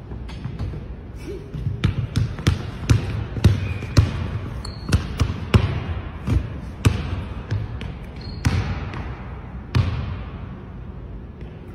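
Basketball dribbled on a hardwood gym floor: an irregular run of bounces, about two to three a second, which stops about ten seconds in. Each bounce echoes briefly in the large gym.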